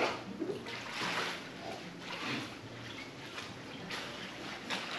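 Swimming pool water sloshing and splashing in irregular surges, as when a dog is swimming.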